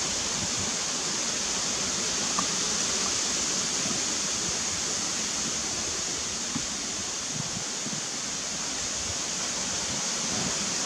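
Steady outdoor hiss of wind through trees, with a couple of faint knocks from handling.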